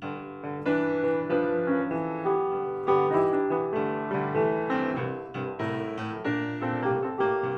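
Solo piano music: a gentle melody of struck notes with chords.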